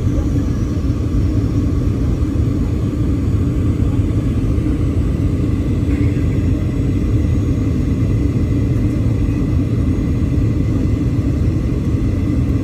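Steady engine and airflow rumble inside the cabin of a Boeing 737-800 airliner, deep and unchanging, with a faint thin whine above it.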